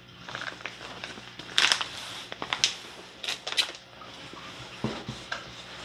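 Crinkling and rustling of a plastic bag of baking soda being handled and lifted out of a cardboard box, in a few short bursts with light knocks against the cardboard.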